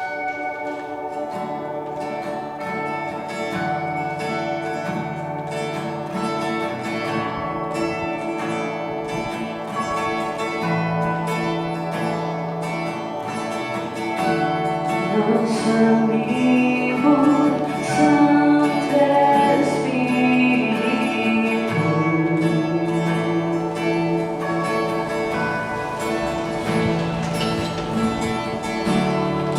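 Christian worship band playing a slow song live on acoustic guitar, bass, electric guitar and keyboard, with held chords throughout. A voice comes in singing about halfway through.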